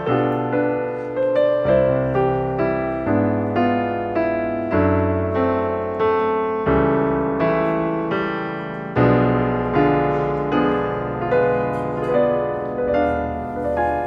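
Background piano music, a gentle run of notes struck about twice a second over slow-changing bass notes, each note fading away.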